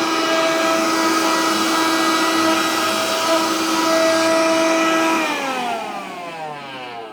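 Vacuum cleaner running with a steady whine, then switched off about five seconds in, its motor winding down with a falling pitch.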